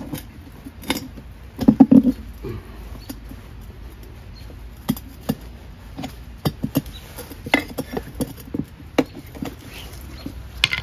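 Hand tools working a small ATV tire's bead over the rim: irregular clicks, scrapes and knocks of a screwdriver and hammer against the rim and rubber. The loudest is a quick cluster of knocks about two seconds in.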